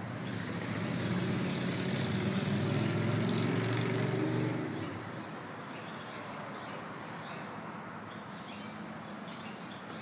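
A motor vehicle driving past, its engine swelling for about four seconds and then fading back into a steady background hum of traffic.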